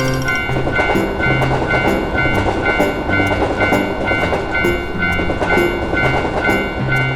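Japanese railroad crossing warning bell ringing its alternating two-tone "kan-kan", about two dings a second, while a train runs past, wheels clattering on the rails, over background music.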